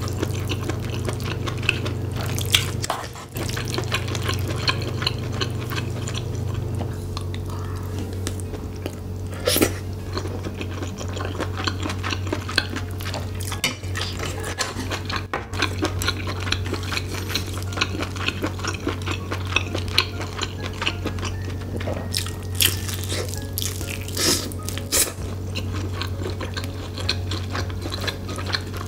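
Close-miked eating sounds: wet chewing and smacking of spicy rice with glass noodles, octopus and tripe, with a wooden spoon scraping and clinking in the pan. Many small clicks and a few sharper ticks run over a steady low hum.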